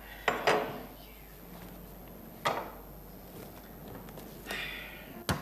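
A few sharp, hard knocks and clatters at irregular spacing: two close together near the start, single ones about two and a half and four and a half seconds in, and a quick cluster at the end.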